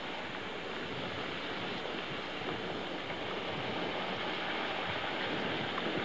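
Hot frying oil bubbling and sizzling steadily around a whole turkey submerged in a deep-fryer pot; the moisture from the bird makes the oil boil up.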